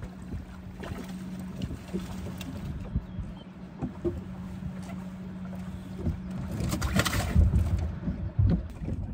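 Small fishing boat on open water: wind and water noise with a steady low hum that stops about six seconds in, and scattered small knocks as a walleye is swung aboard and handled. A louder rustling, splashy burst comes about seven seconds in.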